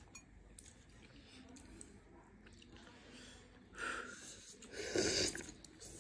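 Noodles being slurped from a bowl: two short slurps, the second louder, about four and five seconds in, against faint room sound.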